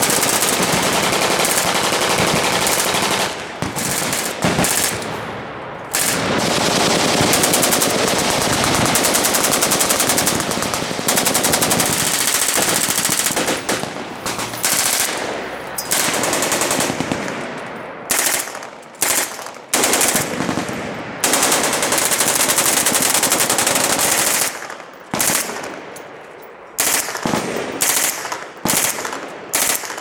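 Fully automatic fire from an HK MP5K-style submachine gun: long strings of rapid shots with only brief breaks. After about 18 seconds the fire comes in shorter bursts with gaps between them.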